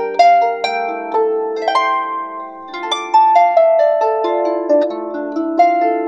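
Lever harp played solo: a melody of plucked notes that ring on over lower accompanying notes, with a brief softer spell about two and a half seconds in.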